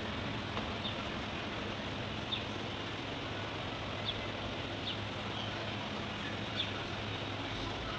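Steady background noise with a low hum, and about five faint, light metallic clicks spread out as a steel engine valve is handled against a tractor diesel cylinder head.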